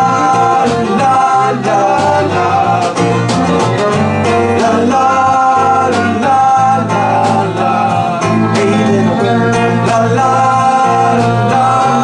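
Live band music: acoustic and electric guitars playing a country-style song, with several voices singing.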